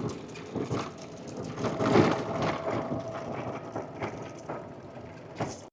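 Wind buffeting the microphone: an uneven rumble with crackles that rises and falls in gusts, strongest about two seconds in.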